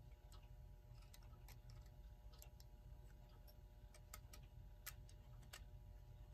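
Near silence with faint, irregularly spaced light clicks as small clock parts are handled and the synchronous-motor rotor is fitted back into the movement plate, over a faint steady hum.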